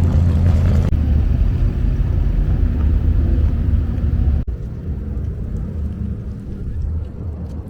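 Vehicle engines running with a deep, steady low sound, broken off abruptly about a second in and again at about four and a half seconds, quieter after the second break.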